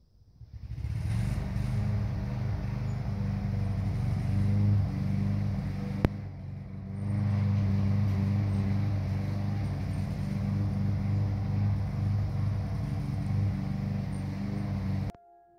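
A motor running steadily with a low, even hum, cutting off abruptly near the end, with a single sharp click about six seconds in.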